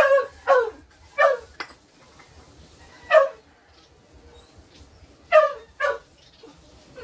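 A dog barking, six short barks in irregular bursts, each dropping in pitch.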